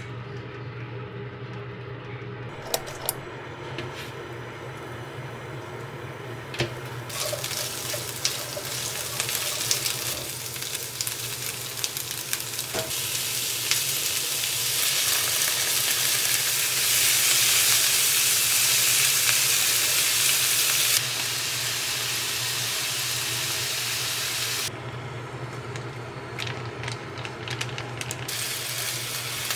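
Pork belly and cabbage sizzling as they fry in a wok. The hiss builds from about seven seconds in, is loudest in the middle, then drops back in two steps. A couple of sharp clicks come near the start, and a steady low hum runs underneath.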